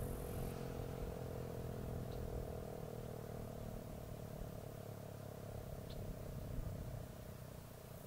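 ACA P-10 single-tone outdoor warning siren giving a steady tone that fades away gradually, over a low rumble. Two faint short chirps come through about two and six seconds in.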